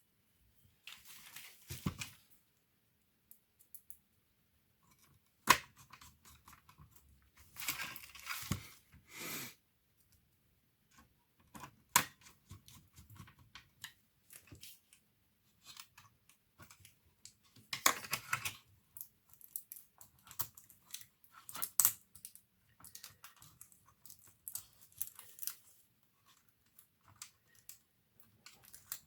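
Hands working on an opened laptop: scattered sharp plastic clicks and knocks, with a few short bursts of scraping and rustling and quiet gaps between.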